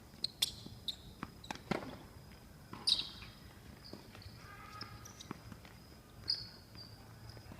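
Sharp knocks of a tennis ball at irregular intervals: racket hits and bounces on the court, several in the first three seconds and a few more after.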